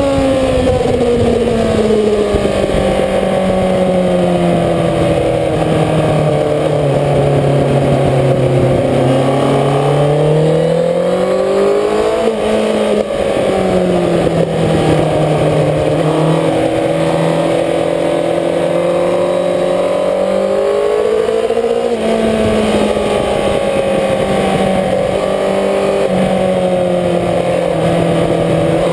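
Sport motorcycle engine heard from an onboard camera at speed on a racetrack, its pitch falling and climbing as the bike slows for corners and accelerates out, with sudden steps in pitch about twelve and twenty-two seconds in. A steady rush of wind noise runs under the engine.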